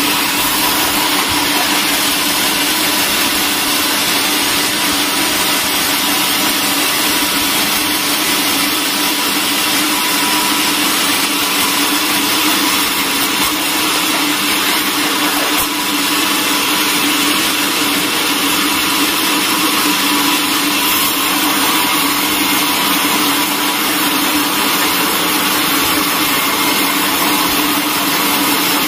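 Large vertical band saw ripping lengthwise through a thick timber slab. It is a loud, unbroken hiss over a constant hum of the running machine.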